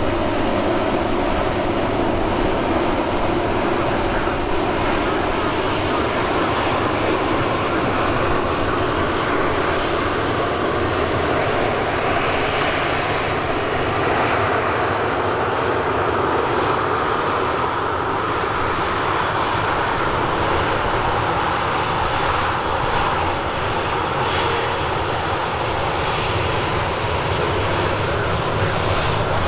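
A CRJ-900 regional jet's engines running steadily, a constant rush with a faint high whine over it.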